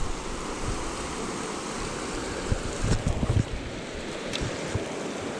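Shallow river water rushing steadily over rocks in rapids, with a few low bumps of wind or handling on the microphone around the middle.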